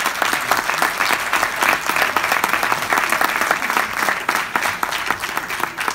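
Audience applauding: a dense, steady spell of clapping from a large crowd.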